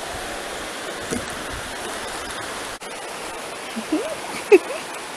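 Steady rush of a river below, with a few faint footsteps on the wooden ties of an old railroad bridge and a brief voice sound about four seconds in.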